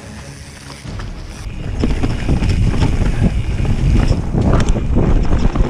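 Mountain bike riding fast down a rough dirt trail: wind rumbling on the action camera's microphone with the bike rattling and knocking over the ground, getting much louder about a second in and again about two seconds in.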